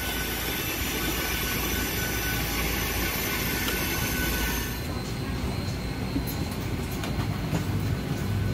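Steady whining hiss and hum of a parked Boeing 737 on the apron, heard while climbing the airstairs. About five seconds in, the high hiss cuts off sharply as the cabin door is passed, leaving a duller cabin hum.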